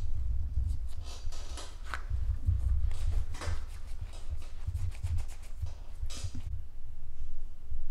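Hands rolling mantou dough into balls and setting them down on a silicone pastry mat: soft rubbing swishes over low, dull bumps on the table. The swishing stops about six and a half seconds in.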